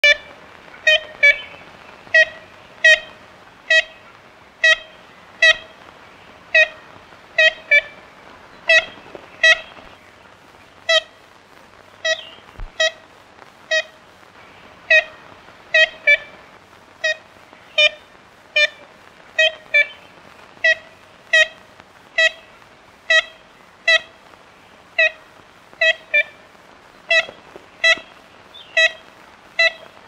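Ivory-billed woodpecker calling: short, nasal, horn-like 'kent' notes, single or in quick pairs, repeated steadily about once a second.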